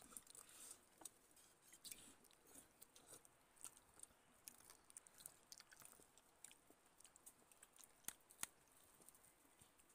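Quiet, close-up eating sounds: soft chewing with many small sharp clicks scattered through, the two loudest about eight seconds in.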